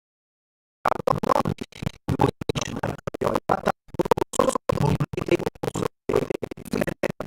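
Garbled, stuttering audio that starts suddenly about a second in and keeps cutting in and out to dead silence several times a second, like a badly broken-up recording.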